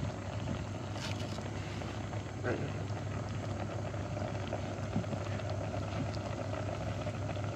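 A knife tapping softly a few times on a wooden cutting board as green onions are chopped, over a steady low hum and a pot of fish porridge simmering.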